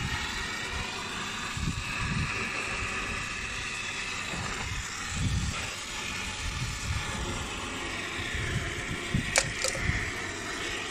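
MAPP gas torch burning with a steady hiss, heating a brazed copper pipe joint on an air conditioner compressor to melt the braze and free the pipe. Two sharp clicks about nine seconds in.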